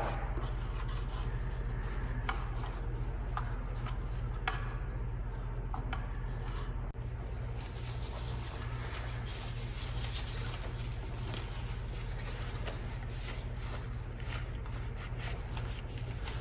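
Faint rubbing and scraping with small scattered clicks from a paintbrush being rinsed in a plastic cup and handled at a table, over a steady low hum.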